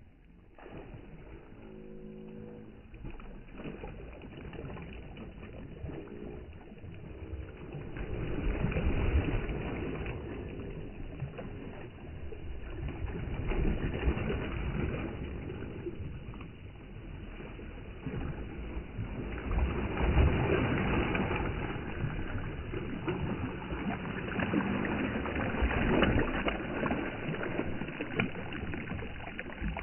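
Bare feet splashing and sloshing through shallow river water while wading, coming in uneven surges that grow louder after the first few seconds.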